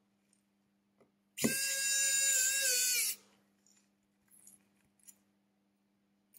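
A small power tool's electric motor spins up quickly and runs at a steady whine for under two seconds, then stops.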